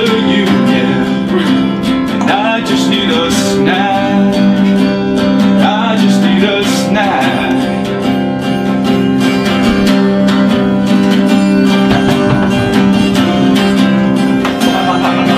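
Acoustic guitar music played live, over a steady low drone.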